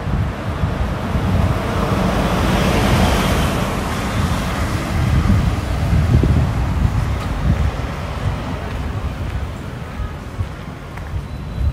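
Wind buffeting the microphone in a gusty rumble over the steady hiss of car traffic on a city avenue. A swell of noise peaks about three seconds in.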